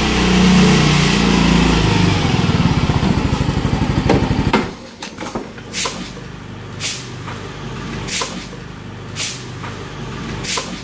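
Motor scooter engine running, then stopping about four and a half seconds in; after that, short sharp taps about once a second.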